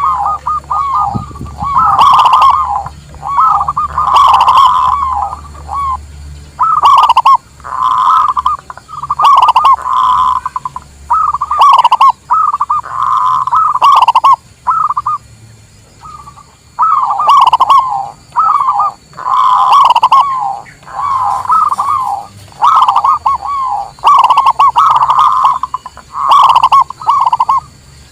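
Zebra doves (local perkutut) cooing: rippling, trilled coo phrases about a second long, repeated over and over with short pauses between.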